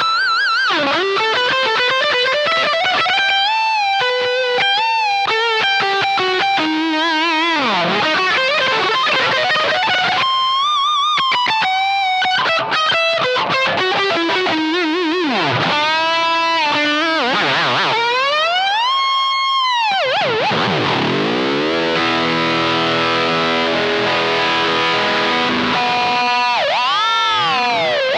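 Electric guitar through a Suhr Riot high-gain distortion pedal playing a shred-style lead: fast runs, held notes with wide vibrato, and several deep pitch dives and swoops, the biggest near the middle and another near the end.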